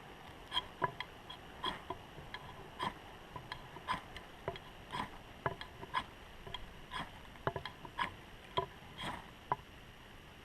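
Ferro rod (fire steel) being struck over and over, short sharp scrapes about two a second, to throw sparks into a cedar-bark tinder bundle that is slow to catch because the bark is damp.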